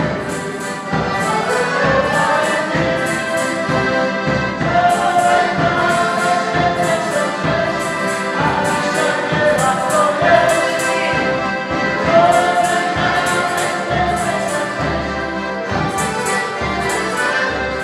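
Polish folk band playing a lively dance tune, with accordions carrying the melody over a bass drum beating a steady rhythm.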